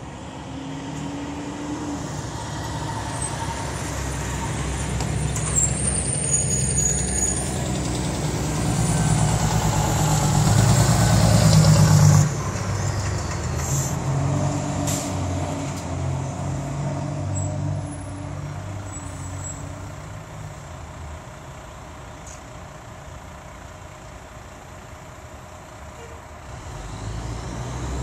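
Diesel engines of a fire engine and a tower ladder truck pulling away. The rumble builds until it cuts off suddenly about twelve seconds in, then a quieter truck engine runs on and fades, with a couple of short air-brake hisses shortly after the cut.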